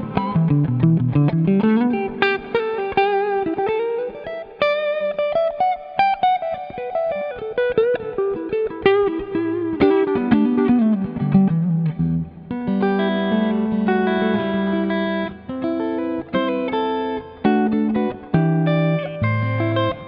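Eko LP-P90 electric guitar with P90 pickups, played through an amp. It plays quick single-note lead runs with slides for about the first twelve seconds, then switches to held chords with low notes underneath.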